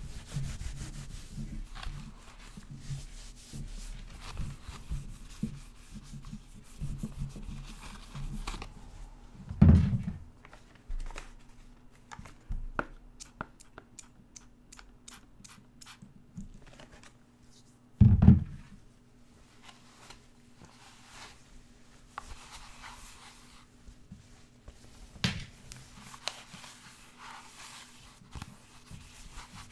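Close-up rustling and wiping of a cloth against a plastic mask, with a run of quick, sharp spritzes from a Windex spray bottle's trigger in the middle. Two loud low thumps, one about ten seconds in and one a little past halfway.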